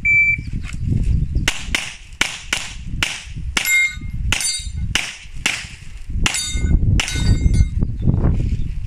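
A shot timer gives one short beep, then a pistol fires a rapid string of some twenty shots over about six seconds. Several shots are followed by the ring of a hit on a steel plate.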